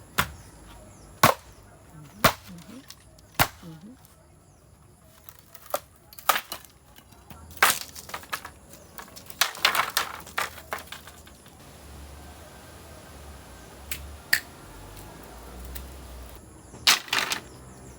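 Irregularly spaced sharp knocks and clicks, about a dozen, a few of them loud, with a cluster of them near the end.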